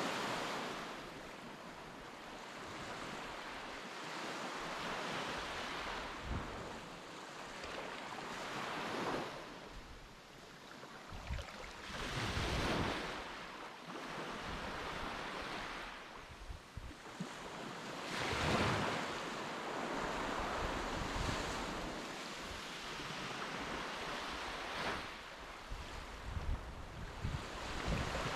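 Sea surf washing onto a beach, swelling and fading every few seconds, with wind gusting on the microphone.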